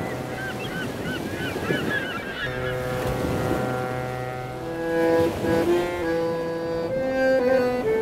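Surf-like noise with a flurry of short, quickly repeated bird calls, then held music notes come in a couple of seconds later: sustained chords that shift pitch every second or so and grow louder about halfway through.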